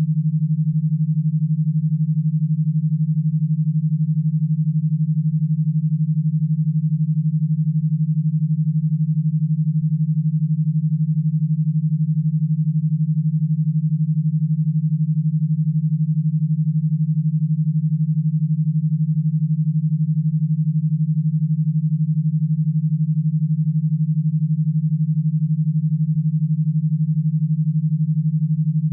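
Synthesized e-stim audio signal: one steady, low, hum-like tone pulsing rapidly and evenly, built as a 12 Hz pattern to be fed through an e-stim power box to electrodes.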